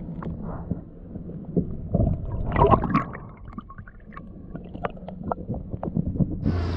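Water sloshing and gurgling against a kayak, with scattered knocks and bumps on the hull and a louder burst of sloshing about two and a half seconds in. Just before the end a steady low drone starts up.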